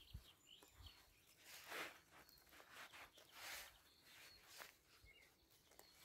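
Very faint rustling of grass as a hand parts it and picks fairy ring mushrooms, a few soft swishes spaced a second or two apart, with faint short bird chirps.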